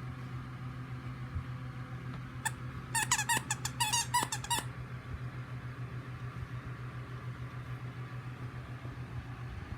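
A dog's monkey-sounding squeaky toy squeezed in a quick run of wavering, high squeaks for about two seconds, a few seconds in. A steady low hum runs underneath.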